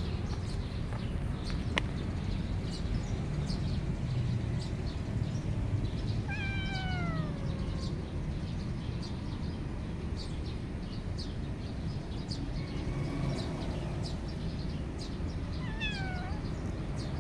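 Calico kitten meowing: a long falling cry about six seconds in and a shorter falling one near the end, with a fainter call between them, over steady low background noise.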